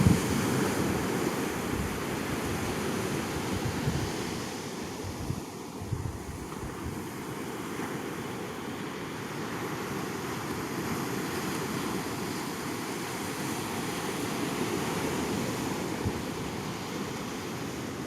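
Ocean surf washing steadily on the beach, with brief gusts of wind rumbling on the microphone a few seconds in.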